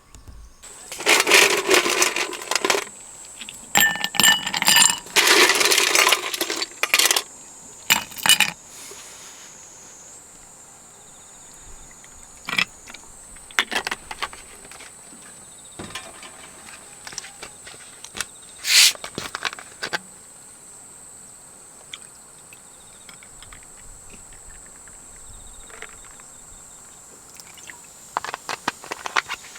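Metal objects clinking and rattling as they are handled, in loud clusters over the first several seconds, then scattered lighter clinks.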